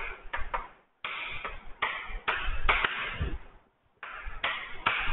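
Chalk writing on a chalkboard: scratchy strokes with sharp taps as letters are formed, stopping twice for a moment.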